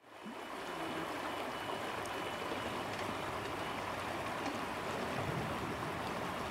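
River water running steadily over a shallow, rocky bed, fading in at the start.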